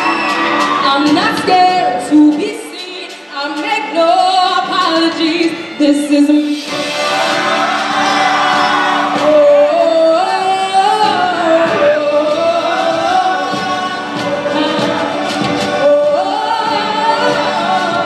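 A girl singing into a microphone over loud backing music in a large hall. The music swells and fills out about six and a half seconds in.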